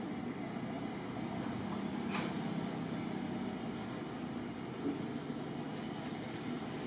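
Steady low outdoor rumble, a little stronger about two seconds in, with a faint click at about the same point.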